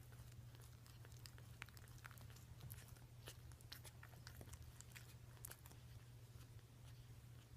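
Faint, irregular small clicks and smacks of three-day-old Maltese puppies suckling at their mother's teats, over a low steady hum.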